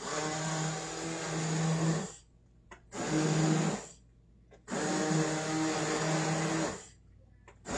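Hand-held immersion blender run in a pot of broccoli potato soup, partly puréeing it. It is switched on and off three times: about two seconds, a short burst of under a second, then about two seconds, with a steady motor hum each time.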